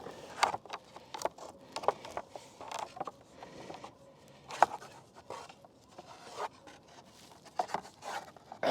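Rope and rigging being handled: irregular rubbing and scraping sounds with scattered light clicks and knocks, the sharpest knock about halfway through.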